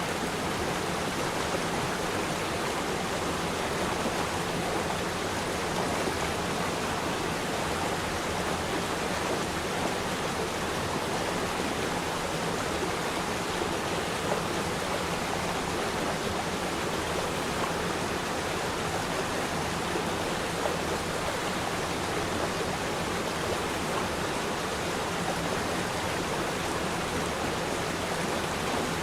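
Waterfall: a steady rush of falling water, an even hiss with no change in level.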